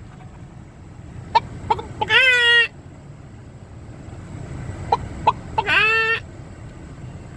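Roosters crowing twice, a few seconds apart: each call opens with a couple of short notes and ends on a longer held note.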